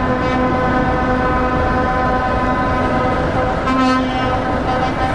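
Lorry air horn sounding steadily over the low running of diesel truck engines, with a brief louder blast near the end.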